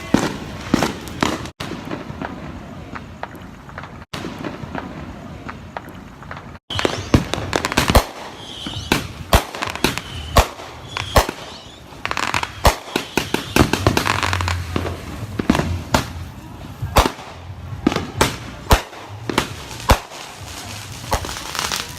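Fireworks going off in a string of sharp bangs and crackles, a few at first, then several a second from about a third of the way in.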